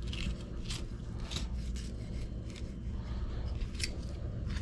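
Fillet knife cutting along the backbone of a speckled trout, a run of short, irregular scraping strokes as the blade works the fillet off, over a low steady hum.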